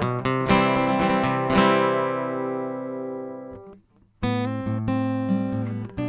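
AMI JM-AGE slope-shoulder dreadnought acoustic guitar, plugged in through its CE304T pickup preamp, being strummed. A chord rings out and fades, the strings go silent for a moment about four seconds in, then strumming resumes.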